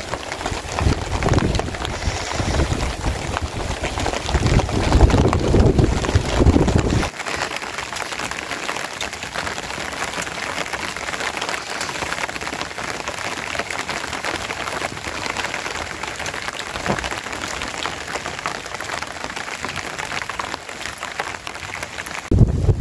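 Gusty wind buffeting the microphone for the first several seconds, then steady rain pattering on a tarp shelter.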